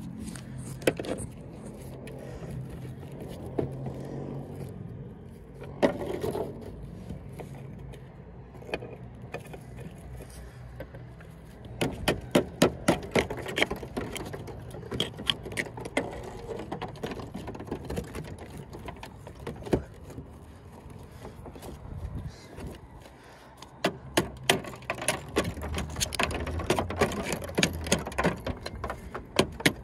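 Steel plugging chisel chipping and scraping old mortar pointing out of a brick joint above lead step flashing. It comes as scattered knocks, with two runs of rapid sharp knocks, one about midway and one near the end.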